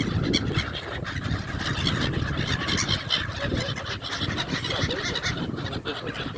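A flock of seabirds calling over one another, a dense run of short overlapping calls, over a steady low background noise.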